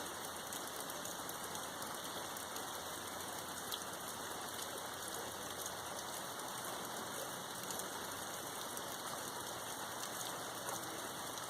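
Steady rain falling, with drops pattering on a surface and a few slightly louder single drops.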